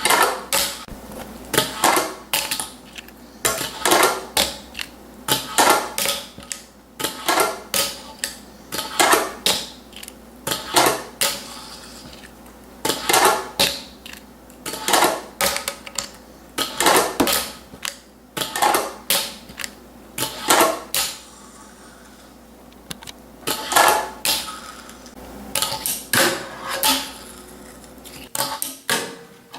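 Wooden fingerboard and its parts clicking and clacking against a hard surface, in irregular quick clusters of sharp hits.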